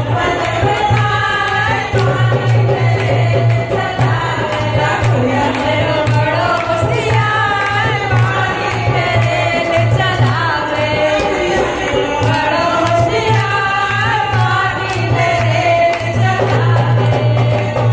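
Women singing a languriya, a Hindi devotional folk song, into handheld microphones, with the group clapping along in rhythm.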